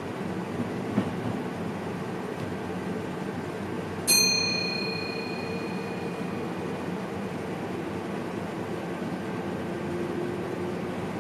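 Steady running noise inside the cab of a VIRM double-deck electric train, with a brief click about a second in. About four seconds in, a single bell-like ding sounds once and rings away over a couple of seconds, typical of the cab's train-protection (ATB) signal chime when the signal aspect changes.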